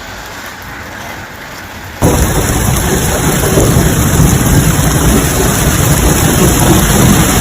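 Heavy storm downpour: a steady rushing noise that jumps abruptly to a much louder, dense roar with a deep rumble underneath about two seconds in.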